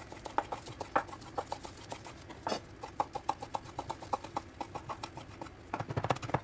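Chef's knife chopping chives finely on a bamboo cutting board: the blade taps the wood in quick, even strokes, several a second, with a faster, louder run of taps near the end.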